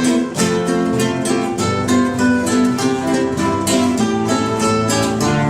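Background music led by plucked strings, ukulele or guitar, with a steady rhythm of picked notes.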